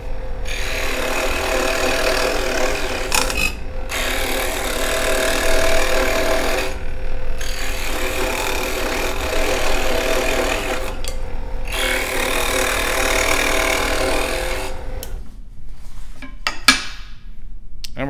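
Delta scroll saw running, its reciprocating blade cutting through a wooden block in four stretches with short breaks as the piece is turned and fed. The cutting stops a few seconds before the end.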